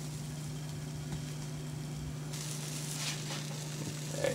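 Blueberry pancake batter sizzling on a hot, lightly oiled griddle while the pancakes are being flipped, over a steady low hum; the sizzle grows louder about two seconds in.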